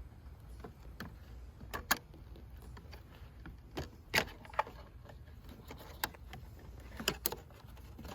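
Scattered sharp clicks and light rattles of a zip tie and wires being worked up through a car's rear bumper behind the tail lights, over a faint low rumble.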